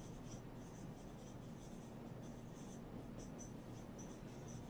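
Whiteboard marker squeaking across a whiteboard as a word is written out, in quick, short, high-pitched strokes several times a second.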